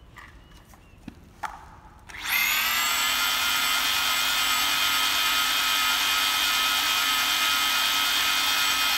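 Electric motor of a handheld C-type pipe bevelling machine switched on after a few light handling clicks. It spins up quickly and runs steadily with a high, even whine.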